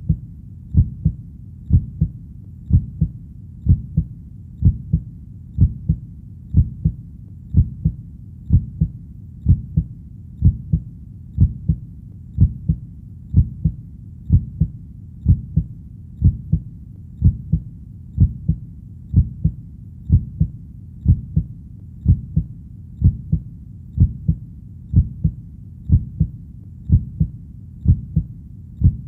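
A steady, slow heartbeat: deep double thumps (lub-dub) repeating evenly about once a second.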